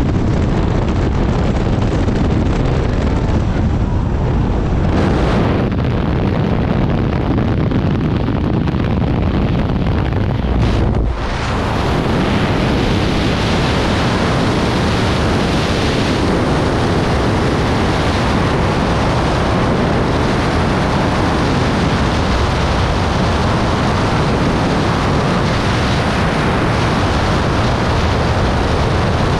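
Loud, steady rush of air noise throughout. At first it is the jump aircraft's cabin and engine noise. After a brief dip about eleven seconds in, it is the wind blast of a skydiving freefall on a jumper's camera microphone.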